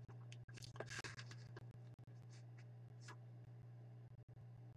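Near silence: a steady low electrical hum with a few faint, brief scratchy sounds.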